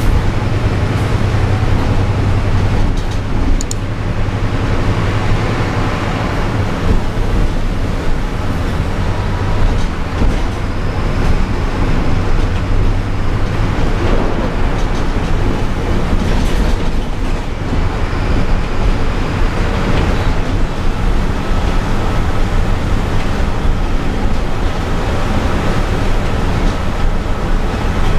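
City bus driving on wet roads in the rain, heard from inside the cabin near the driver: a steady low engine drone mixed with tyre and road noise.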